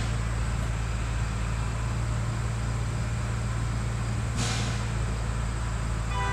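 Engine idling with a steady low hum, and a short hiss about four seconds in. No blast is heard.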